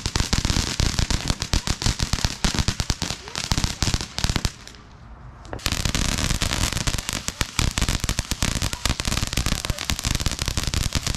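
Ground fountain firework spraying sparks with dense, rapid crackling, which drops away for about a second near the middle and then resumes.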